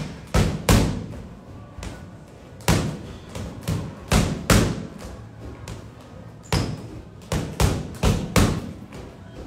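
Boxing gloves striking a freestanding punching bag: rapid thuds in quick combinations of several punches, with a short pause near the middle.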